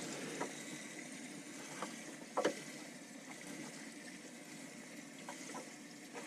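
A bass is being lifted from a boat's livewell for weighing, with faint water sloshing and a few light knocks and clicks against the boat. The sharpest knock comes about two and a half seconds in.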